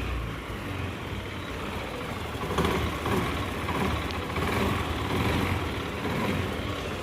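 Honda Activa scooter's single-cylinder four-stroke engine running, its level swelling slightly a few times. The engine noise is taken by the mechanic as the sign of a worn crankshaft and cylinder bore.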